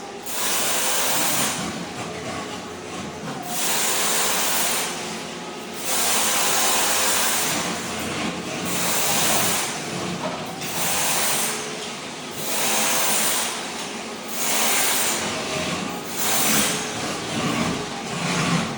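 Ride-on floor scraper running, its blade scraping thin-set tile mortar off a concrete slab. The loud gritty scraping noise swells and eases every second or two.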